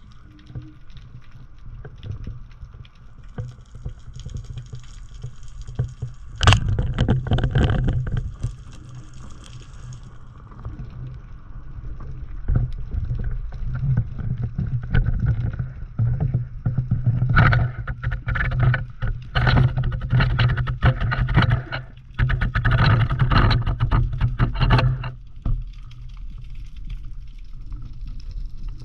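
Water noise on a spearfishing camera: a steady low rumble with crackling and sloshing, louder in a sudden burst about six seconds in and again in a run of bursts later on.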